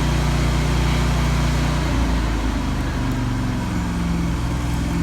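Engine-driven welder (Lincoln Ranger 250) running at weld load with the arc hissing, then dropping back towards idle about two seconds in as the arc stops and the engine speed falls.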